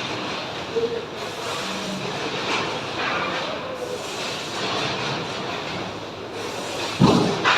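Factory machinery running: a continuous mechanical din with a few faint steady tones, and one loud knock about seven seconds in.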